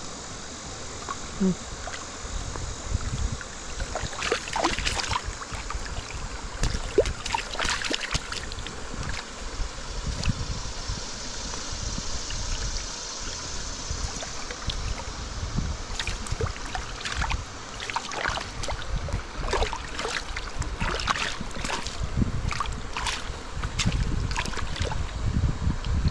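Running stream water, with many short splashes and knocks close to the microphone and uneven low rumble throughout.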